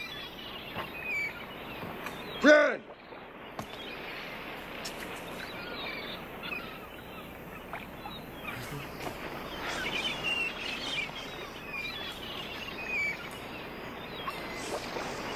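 Outdoor ambience of steady background hiss with scattered bird chirps. About two and a half seconds in, a single short, loud call rises and then falls in pitch, and the sound drops out for a moment right after it.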